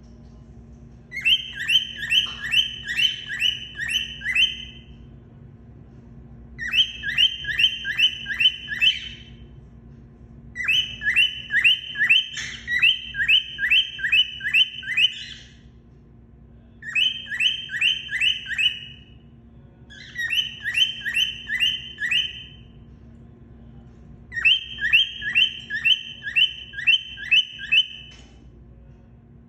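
Grey cockatiel calling in six bouts of rapid, evenly repeated high chirps, each bout lasting a few seconds with short pauses between, over a faint steady hum.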